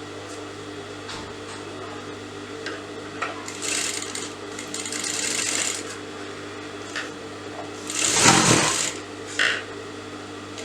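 Electric sewing machine running steadily as it stitches bias tape along the edge of a blouse. Scattered clicks and two bursts of rustling noise, the louder about eight seconds in, come from the fabric being handled.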